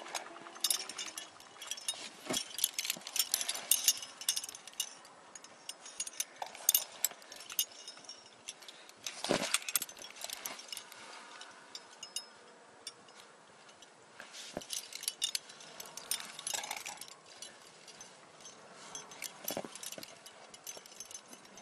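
Climbing rack of carabiners and cams clinking and jangling irregularly on a climber's harness as he moves up a rock crack, with a few louder knocks along the way.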